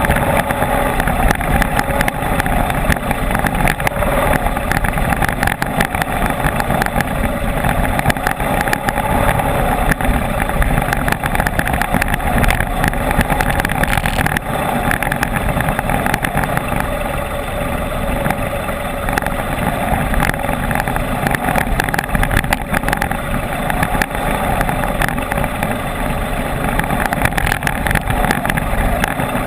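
Enduro motorcycle engine running steadily under way, with scattered short knocks over the engine noise.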